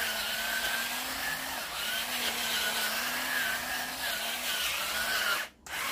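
Electric pepper grinder's small motor whirring steadily as it grinds black pepper, cutting out briefly near the end and starting again.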